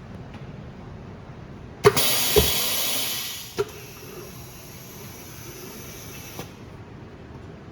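Lamination machine's pneumatic valves working under a steady low machine hum: a sharp click and a loud air hiss about two seconds in, a thump half a second later, the hiss dying away with another click, then a quieter hiss that stops with a click near the end.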